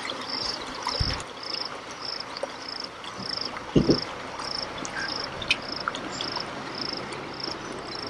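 An insect chirping steadily in short, high-pitched pulses, about three every two seconds, over faint outdoor hiss. Two soft low thumps come about a second in and just before four seconds.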